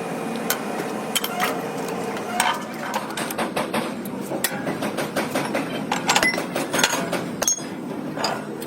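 Irregular metallic clinks and knocks of tools and steel gearbox parts being handled and struck.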